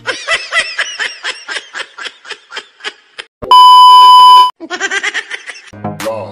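Edited-in laughing sound effect: a quick run of 'ha-ha' bursts that fades out. About three and a half seconds in it is cut by a loud, steady, one-second test-tone beep with the TV colour-bar screen. Then comes another short laugh, and music with a beat starts near the end.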